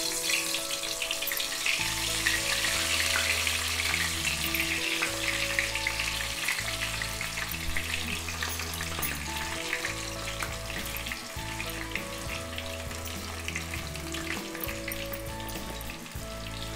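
Spinach pakoda batter deep-frying in hot oil in an iron kadai: a dense, steady sizzle of bubbling oil that eases a little toward the end. Soft background music with held low notes plays underneath.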